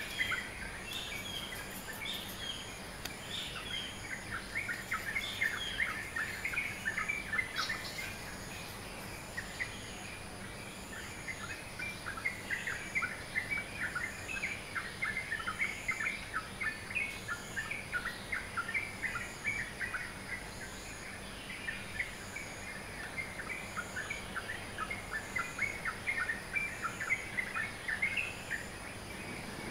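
Dawn chorus of small birds: many rapid, overlapping short chirps and tweets, dense and continuous.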